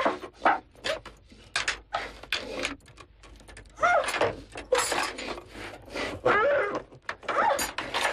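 A scuffle: short cries and grunts from a person mixed with scattered knocks and thuds, as someone resists being tied up.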